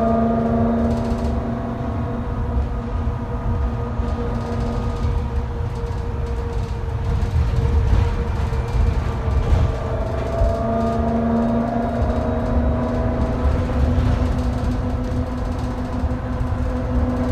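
New Flyer XT60 articulated trolleybus's electric traction drive (Vossloh Kiepe) humming with a steady whine over the road and body rumble of the moving bus, heard inside the cabin. The whine fades out about two seconds in and comes back about ten seconds in.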